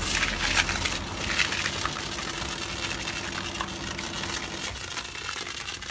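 Foam spraying in a hissing jet from a car-wash foam tank's hose onto a motorbike, loudest in the first second, with a steady machine hum beneath.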